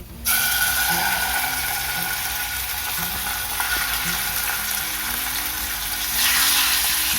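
Chicken pieces sizzling as they drop into a pan of hot shallow oil. The frying hiss starts suddenly just after the start and grows louder again about six seconds in as more pieces go in.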